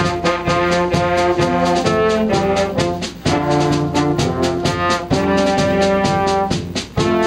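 Brass band, brass and clarinets together, playing a tune in held notes over a steady beat, with two brief breaks between phrases, about three seconds in and near the end.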